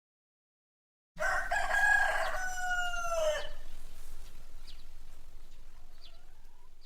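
Rooster crowing once, starting about a second in: one long call that drops in pitch at its end. Faint farmyard background with a few small bird chirps follows until it cuts off.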